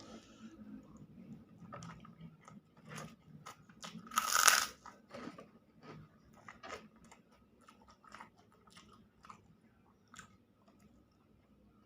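A person chewing a mouthful of balado egg, close to the microphone, with frequent small wet clicks of the mouth. About four seconds in there is one louder, short hissing noise.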